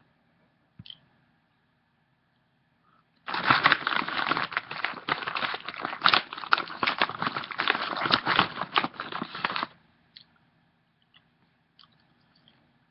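Loud crinkling and crackling, starting about three seconds in and stopping abruptly some six seconds later.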